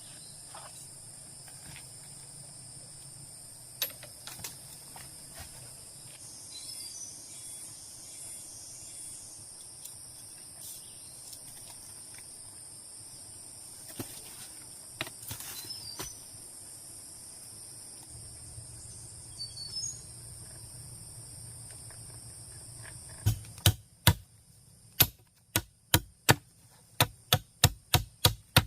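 Steady high-pitched insect chorus of crickets or cicadas, with scattered faint clicks. Near the end it gives way to a run of sharp, evenly spaced knocks, about three a second and getting quicker.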